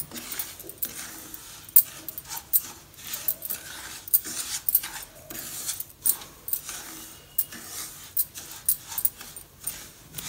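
Flat wooden spatula scraping and stirring semolina in a nonstick frying pan, a train of short gritty strokes one or two a second, as the semolina is roasted on low flame and kept moving so it doesn't burn.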